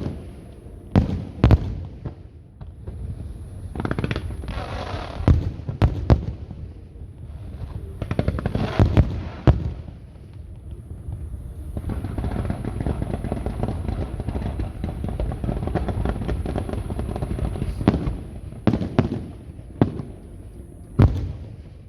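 Aerial fireworks exploding: sharp booms, singly and in pairs, with a long stretch of dense crackling from about twelve to eighteen seconds in.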